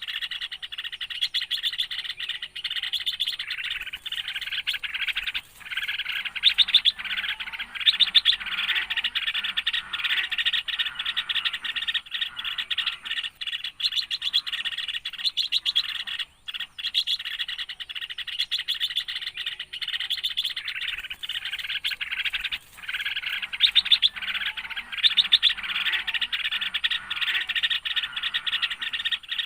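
Small birds chirping in a dense, rapid, nearly continuous stream of high notes, dropping out briefly a few times.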